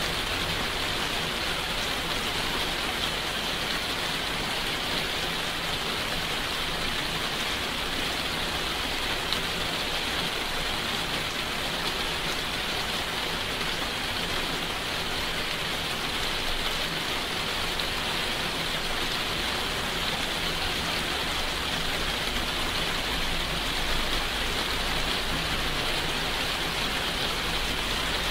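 Steady rainfall: an even, unbroken hiss.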